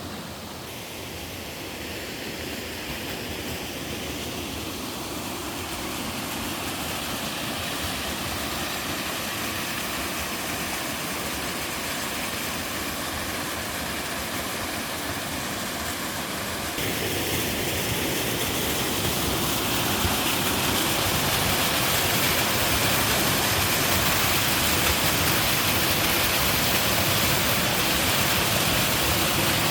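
Twin waterfall pouring into a mountain stream: a steady rush of falling water that grows gradually louder and steps up sharply about two-thirds of the way through.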